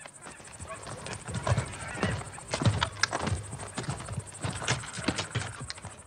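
A firing squad readying their muskets: a run of irregular clicks and knocks as guns and gear are handled.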